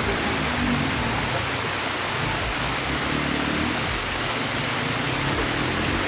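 Waterfall cascading down rocks into a small pool: a steady rush of water, with soft background music under it.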